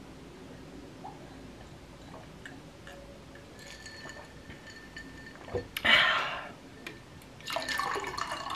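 Hard cider poured from a can into a glass tumbler, a noisy splashing pour that starts near the end. Before it come quiet sips from the glass, then a short click and a brief loud burst about six seconds in.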